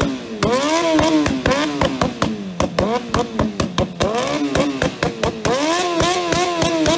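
Motorcycle engine revved hard again and again through a short, wide open exhaust, its pitch rising and falling in quick repeated blips, with many sharp pops and bangs as unburnt fuel ignites in the exhaust and shoots out as flames.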